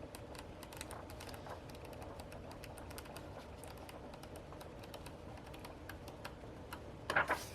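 Pages of a planner being turned one after another: many small, irregular paper ticks and flicks, a little louder about seven seconds in.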